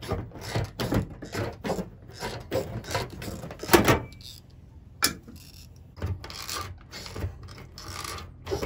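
Tin snips cutting a thin sheet-metal ceiling panel: a run of short metallic crunches, about two or three a second, each a squeeze of the blades, with a brief pause about four seconds in.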